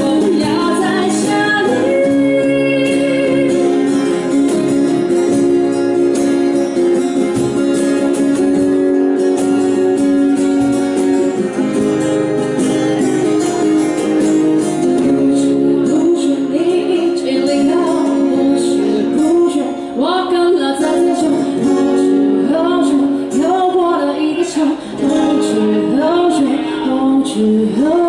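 Live acoustic band playing a Cantonese pop song: a woman singing over two strummed acoustic guitars and a cajón. The singing stands out most in the second half.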